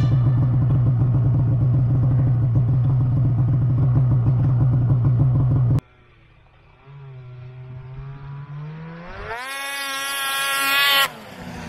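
Snowmobile engine running with a steady low hum, then after a sudden cut, a two-stroke snowmobile engine revving up. Its pitch and loudness climb steeply before it cuts off abruptly near the end.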